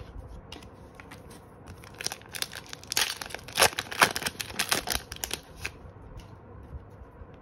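A foil Pokémon card booster pack torn open and crinkled by hand: a run of crackling rips and crinkles from about two seconds in until past five seconds, with quieter handling of the wrapper and cards around it.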